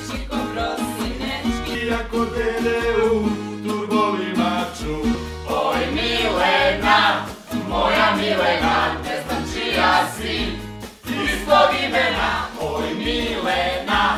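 Song played on a strummed acoustic guitar with a group of voices singing together, the singing fuller and louder from about five and a half seconds in.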